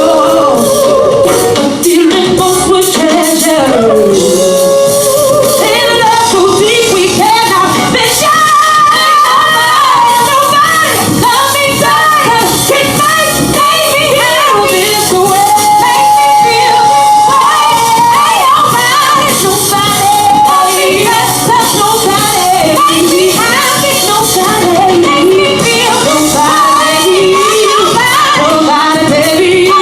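Female vocals over a live band during a soundcheck, the singing made of runs and ad-libs that the recogniser took no words from, with one long held note a little past halfway.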